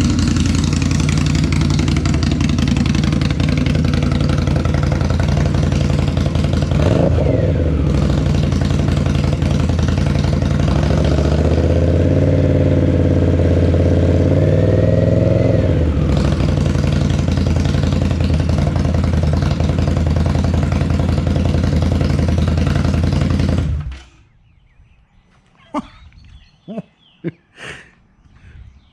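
2018 Indian Scout Bobber's liquid-cooled V-twin idling loud through Vance & Hines twin slash-cut slip-on mufflers. It gets a quick throttle blip about seven seconds in, then is held at higher revs for about five seconds before settling back to idle. About 24 seconds in, the engine is shut off abruptly.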